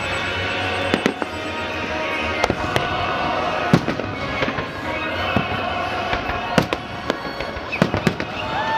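Fireworks display with aerial shells bursting: about ten sharp booms and cracks at irregular intervals, several coming close together near the end.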